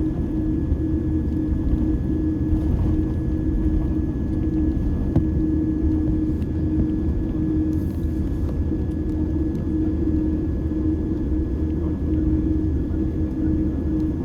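Jet airliner engines at taxi power, heard from inside the cabin: a steady low rumble with a droning hum and a faint, steady high whine.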